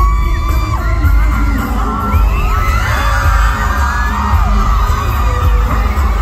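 Live pop music played loud over a concert sound system with heavy bass, and a crowd of fans screaming and cheering over it.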